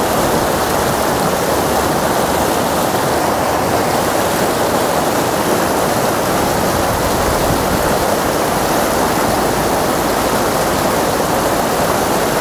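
Fast mountain stream rushing and splashing over rocks and boulders, a steady, unbroken rush of water.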